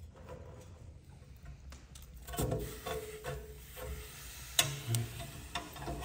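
Steel wood-burning stove's firebox door and latch being worked by hand: metal scraping and clanking with brief ringing, then several sharp metallic clicks in the last second and a half as the door is pushed shut and latched.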